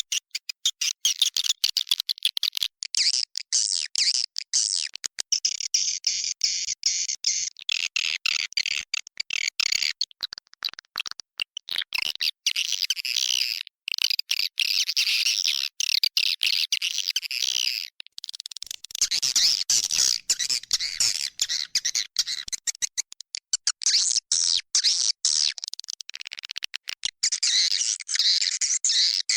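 Edible-nest swiftlets twittering: a dense stream of rapid, high chirps with a couple of brief breaks. This is a recorded swiftlet call track, played to lure swiftlets into a nesting house.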